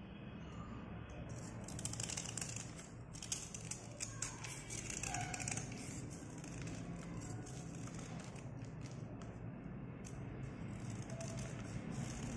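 A slate pencil being scraped with a small metal blade: quick rasping strokes shaving off its surface, in one spell about two seconds in and another near the end.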